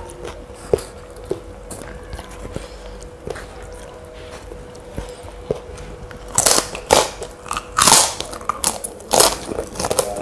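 Crunching of a thin, crisp white cracker bitten and chewed close to the microphone: a few soft clicks at first, then a run of loud, sharp crunches from about six seconds in.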